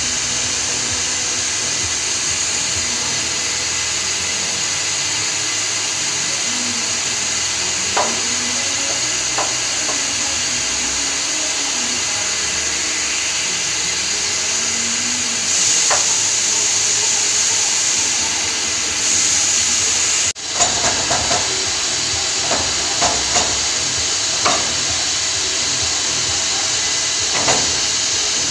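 A steady hiss with scattered light metallic clicks and knocks as the metal mould parts are handled and fitted. There is a momentary break about two-thirds in, after which the clicks come more often.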